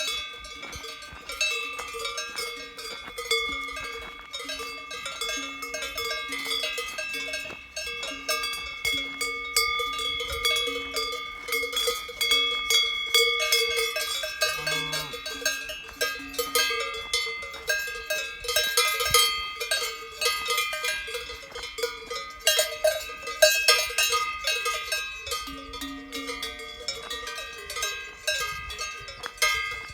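Many cowbells worn by grazing cows clanking and ringing irregularly, several bells of different pitches overlapping.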